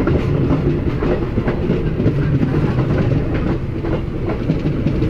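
Loud, steady rumble of passenger coaches passing close on the adjacent track, with the steel wheels clattering over rail joints in scattered clicks.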